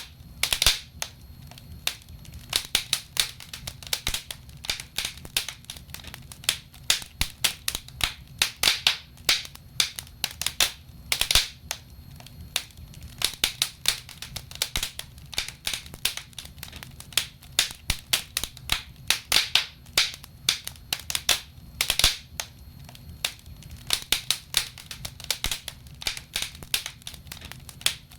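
Burning logs crackling and popping in a fireplace: irregular sharp snaps, several a second, over a low steady hum.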